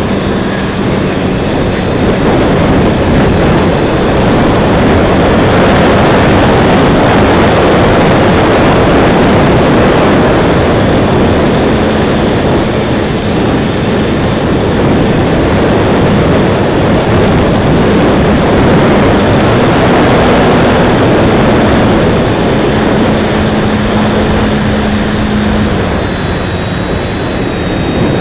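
Onboard sound of a Multiplex FunCub radio-controlled plane in flight: its electric motor and propeller running steadily under a loud, even rush of propeller wash and airflow over the camera's microphone. A faint motor tone shifts slightly in pitch as the plane manoeuvres.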